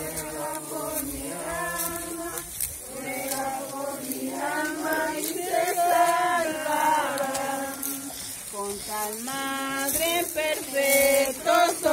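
A group of mourners singing a funeral hymn together, unaccompanied, holding long notes that glide from one to the next; the singing grows louder near the end.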